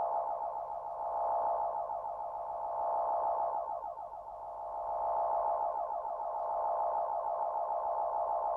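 Electronic science-fiction sound effect: a dense, shimmering cluster of pure tones that swells and fades in slow waves about every two seconds.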